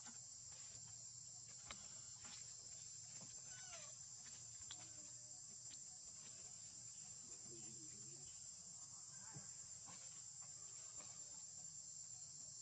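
Faint, steady high-pitched insect chorus, with a few soft clicks and brief faint falling calls about four seconds in.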